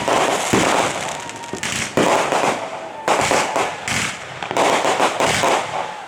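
Consumer fireworks going off in quick succession, about one burst every second, each sharp bang trailing off in crackle, with a faint whistle between some of them.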